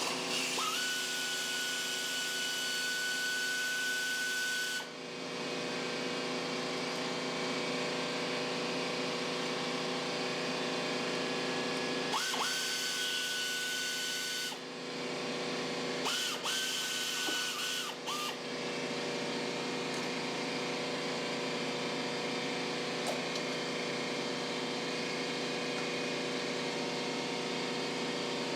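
A small electric motor whirs in three runs of two to four seconds each. Each run spins up quickly to a steady high whine and cuts off sharply, over a constant steady hum.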